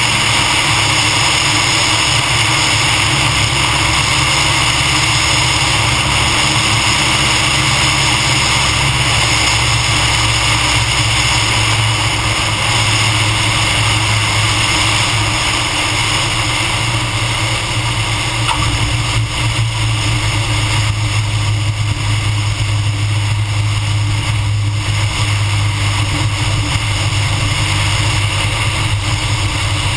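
Cessna 150M's four-cylinder Continental O-200 engine and propeller running throttled back for landing, mixed with heavy rushing airflow over the wing-mounted camera. The steady noise eases slightly about halfway through.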